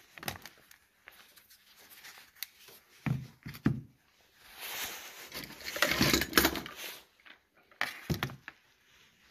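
Wooden Ford Model T trembler coil boxes being handled in a cardboard box: a few sharp wooden knocks and clunks, two together about three seconds in and two more near the end, with a longer scraping, rustling stretch in the middle.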